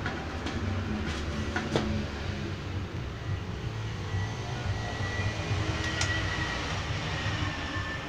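Steady low mechanical hum, with a few sharp metal clicks and knocks in the first two seconds as the clear lid is fitted onto a stainless-steel oil spinner, and another click near the middle. A faint whistling tone comes in about halfway through.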